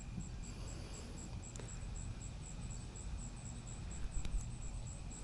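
Crickets chirping at night: a short high-pitched chirp repeating evenly about three times a second, over a low steady background rumble, with a few faint clicks about four seconds in.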